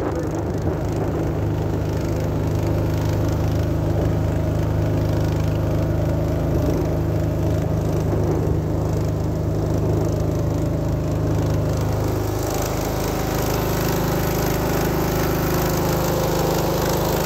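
Small red engine driving a wooden lake boat, running steadily; its note shifts a little about two-thirds of the way through.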